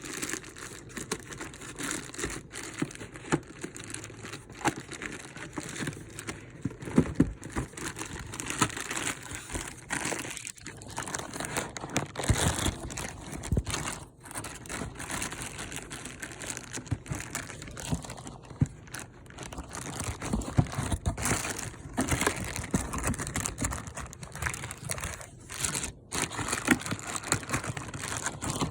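Cardboard packaging being handled and pulled apart by hand: irregular rustling, crinkling and tearing, with scattered small knocks.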